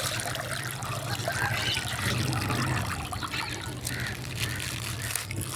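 Water trickling and splashing with small wet clicks, over a steady low hum.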